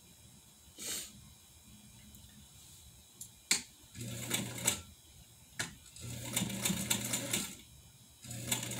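1957 Atlas straight-stitch sewing machine stitching in three short runs, about four seconds in, about six seconds in and near the end, its motor humming under the fast clatter of the needle. A few sharp single clicks come before the runs.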